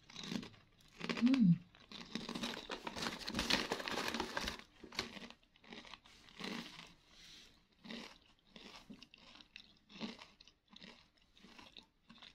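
Crunchy flour-coated baked potato crisps being chewed close to the microphone: a louder, denser stretch of crunching about two seconds in, then a steady run of short crunches about two a second.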